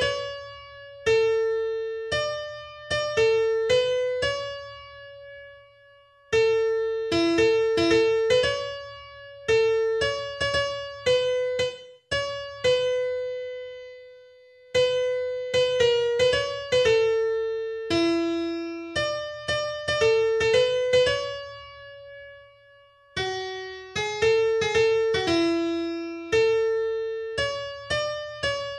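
Background music: a solo keyboard playing a slow melody of single struck notes that ring and fade, in phrases separated by short pauses.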